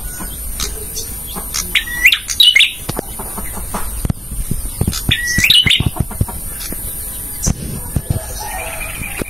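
Male prenjak (a prinia) singing: two quick bursts of sharp chirps that jump upward in pitch, about two seconds in and again about five and a half seconds in, with scattered dry clicking notes between.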